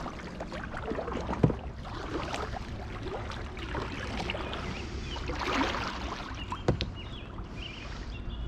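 Kayak paddling: water splashing and dripping off the paddle as a slow stroke goes in, with a swell of splashing about five and a half seconds in. Two sharp knocks, about one and a half and six and three-quarter seconds in.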